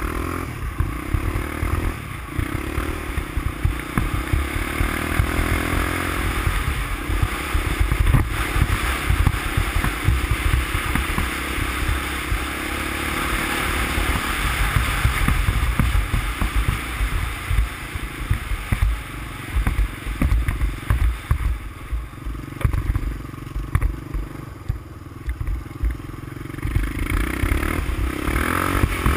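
350X ATV engine running under way at varying throttle, with heavy wind rumble on the microphone. The engine note eases for a few seconds after the middle and picks up again near the end.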